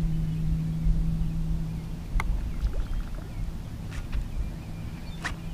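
Steady low hum of a bass boat's bow-mounted electric trolling motor, which drops away about two seconds in, over a low uneven rumble, with a few faint sharp ticks.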